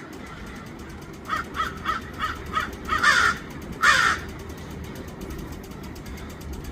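American crows cawing: a quick run of five short caws, then two longer, louder caws about a second apart.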